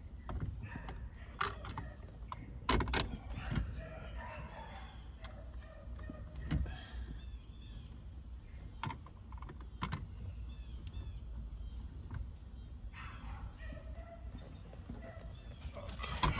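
Scattered clicks and knocks of hand tools and steering-wheel parts being handled during the install, with birds chirping faintly in the background.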